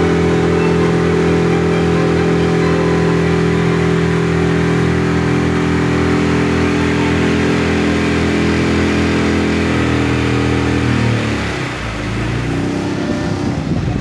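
Motorboat engine running at a steady speed, then throttled back about eleven seconds in, its pitch falling and wavering as the boat slows.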